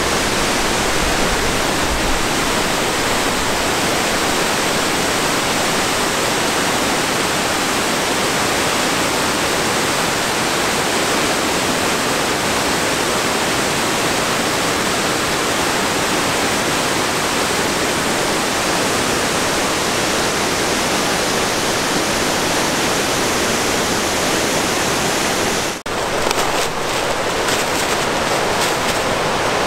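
Steady rush of water pouring over a reservoir dam spillway, flowing strongly. It breaks off sharply for a moment near the end, then a similar rush carries on.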